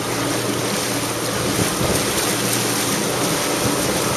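Jet ski engine running steadily as a low hum under a constant rush of water.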